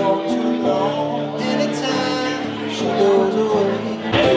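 Live music from a small band: a man singing to two acoustic guitars and a Korg Grandstage stage piano, with long held notes. Near the end the sound turns suddenly louder and fuller.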